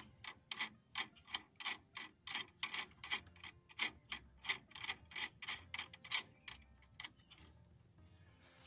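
Steel nut being spun finger-tight along a threaded rod, metal clicking about four times a second, stopping about seven seconds in.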